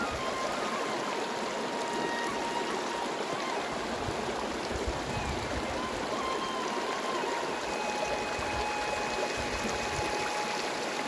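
Stream water running steadily, an even rushing sound. Faint thin wavering tones sound above it.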